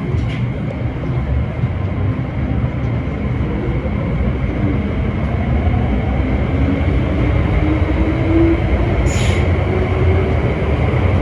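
MTR M-Train metro train running, a heavy low rumble with a faint motor whine slowly rising in pitch over several seconds. A brief high hiss comes about nine seconds in.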